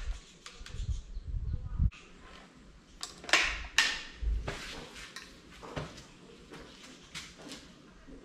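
Clicks and clacks of a TF87 magnum spring-piston air rifle being handled and readied to shoot, with two sharp clacks about half a second apart some three seconds in, then lighter ticks.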